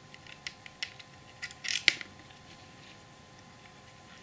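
Small screws being put back into a model fire engine's black chassis by hand: a scatter of light clicks and scrapes, with a louder cluster a little under two seconds in.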